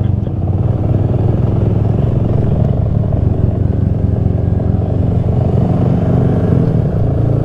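Honda Grom's small single-cylinder engine running steadily while riding at low speed.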